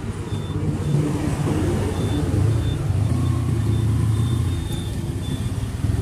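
Motorcycle engine running steadily at low revs, with road and wind noise, as the bike rides on and turns onto the highway.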